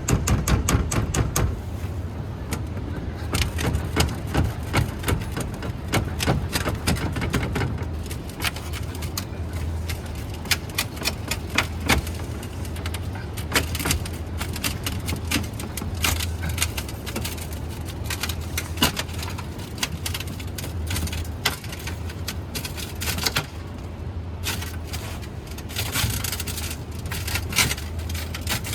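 Irregular clicking, tapping and short scraping of hand work on a window's glazing, such as prying out old putty and handling the glass, over a steady low hum.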